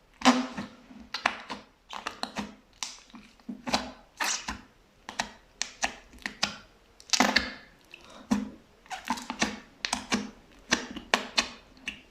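Fluffy slime being squeezed and pressed by hand, giving an irregular run of sharp wet pops and squishy crackles, a few each second.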